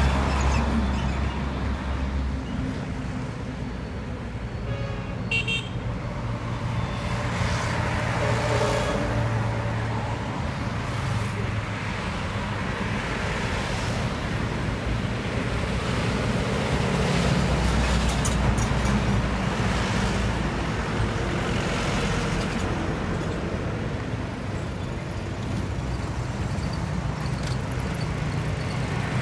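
Highway traffic from the roadside: trucks and motorbikes passing in a steady rush of engine and tyre noise, with a heavy low rumble from a container truck going by close at the start. A brief high-pitched note about five seconds in.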